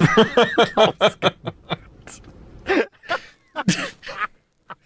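Hearty laughter: a quick run of 'ha-ha' pulses, about five or six a second, for the first two seconds, then trailing off into scattered breathy chuckles.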